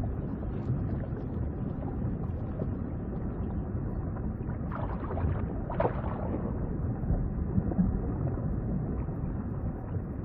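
Underwater ambience: a steady low rumbling wash, with a few short soft swishes around the middle.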